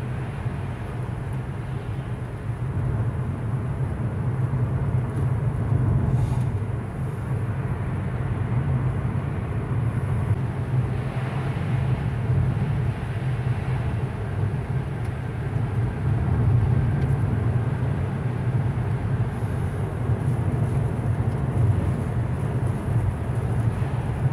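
Steady road and engine rumble inside a moving car's cabin at highway speed, with tyre hiss from wet pavement.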